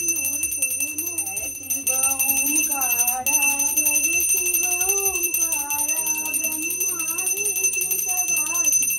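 A song playing: a singing voice carrying a wavering melody over music. Steady, high, bell-like ringing goes on throughout.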